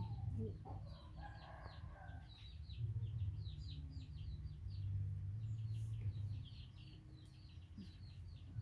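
Birds chirping: a long run of short, high chirps, several a second, over a low steady hum.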